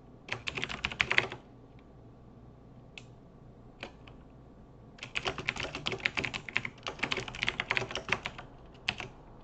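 Typing on a computer keyboard: a short quick burst of keystrokes, a few single key presses, then a longer run of typing lasting about three and a half seconds, and a couple of last taps near the end.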